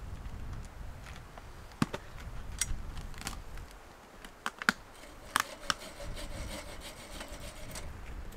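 A wooden pole and stones handled by hand: rubbing and scraping with scattered sharp knocks and clicks, several of them close together about four to six seconds in.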